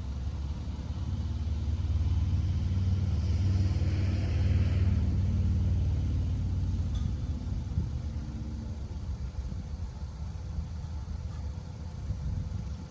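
Motor vehicle engine running with a low rumble, swelling about two seconds in and easing off after about six seconds.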